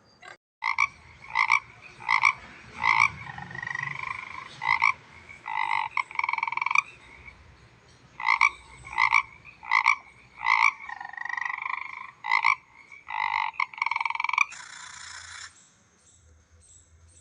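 An animal calling in a run of short, pitched calls, about one every three-quarters of a second, with a few longer trilled calls in between. A hiss about a second long comes near the end.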